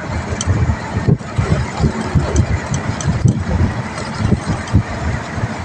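Steady road and engine noise from a moving vehicle at speed, with wind rumbling irregularly on the microphone.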